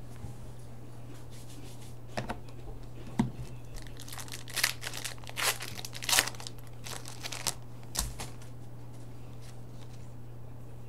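Hockey trading cards being handled and slid against one another by hand: a couple of light taps, then a run of quick swishing slides.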